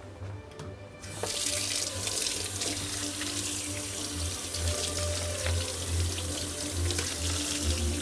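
Kitchen sink faucet turned on about a second in, water running steadily and splashing as raw chicken breasts are rinsed under it.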